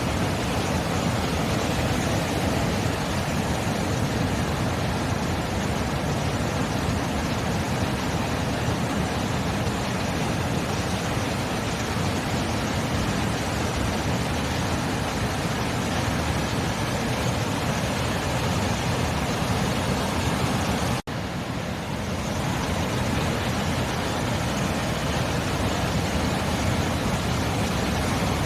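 Sea surf as a steady, even wash of noise, with no separate wave crashes standing out. About three-quarters of the way through it cuts out for an instant and comes back.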